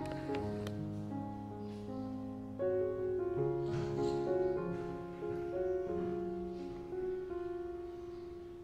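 Background instrumental music led by piano, a gentle melody of held notes.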